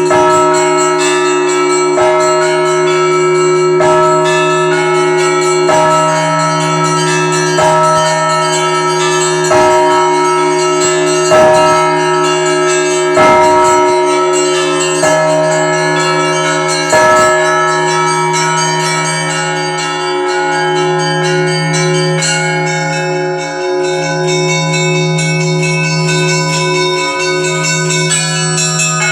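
Russian Orthodox Easter bell ringing (zvon): a large bell struck about every two seconds under the constant chiming of smaller bells. The large bell's strokes stop about 17 seconds in, leaving the smaller bells ringing in a quicker pattern.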